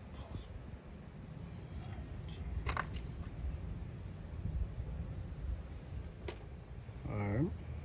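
A cricket chirping steadily in the background, about three short high chirps a second, over a low rumble and a couple of light clicks. Near the end comes a person's short vocal sound, falling in pitch, which is the loudest moment.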